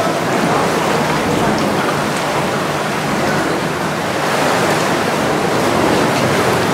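Steady rush of sea water against the hull of a small boat moving through a sea cave.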